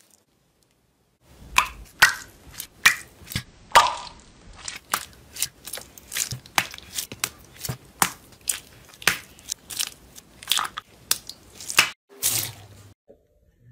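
Small sealed plastic bags of purple slime squeezed one after another in the hand, crinkling and squelching in sharp crackles about twice a second. Near the end comes a short crunch as a hand presses into silver foam-bead slime.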